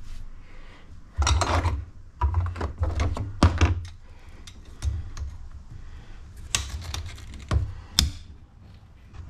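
Clicks, knocks and low thunks from hands fitting an intake hose and working its clamps with pliers in an engine bay. There is a quick run of clicks and knocks about a second in and again around three seconds, then a few single sharp clicks, the sharpest near the end.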